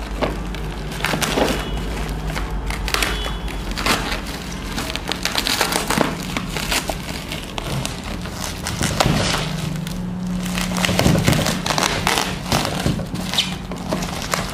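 Plastic bubble-wrap shipping package being torn open and handled: irregular crinkling and crackling of plastic.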